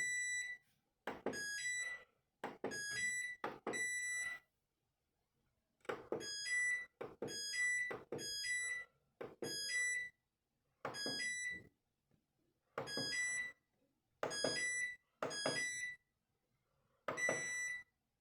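Valberg washing machine's control panel being operated: about a dozen clicks, each followed by a short high electronic beep, in irregular groups with pauses between, as the settings are changed.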